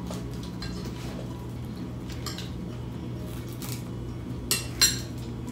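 A spoon clinking lightly against a bowl during a meal, with scattered soft taps and two sharper clinks near the end, over a steady low hum.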